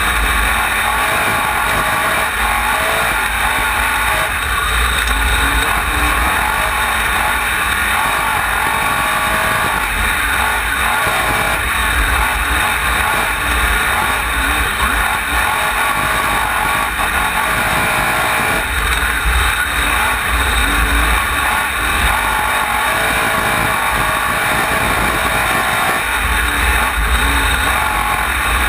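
Wingless dirt-track sprint car engine running hard at racing speed, heard onboard from the car itself. Its low rumble swells and fades every several seconds as the throttle is opened and lifted around the laps.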